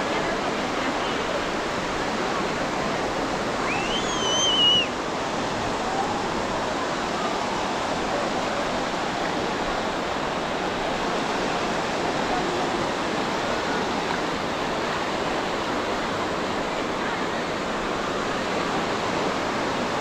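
Steady wash of ocean surf with the chatter of a beach crowd mixed in. About four seconds in, a brief high-pitched call rises sharply, wavers and drops away within about a second.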